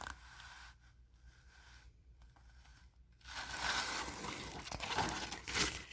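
Paper rustling and crinkling as a picture book's pages are handled and turned. A short quiet stretch comes first, and the rustling starts a little past halfway.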